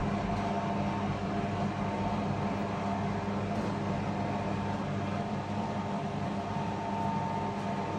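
Steady hum of a running kitchen appliance motor, a low drone with a few fixed tones above it, unchanging throughout.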